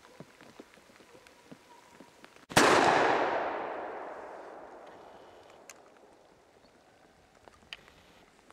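A single gunshot about two and a half seconds in, its echo rolling away through the forest and fading over several seconds. Faint scattered patter of drips before it.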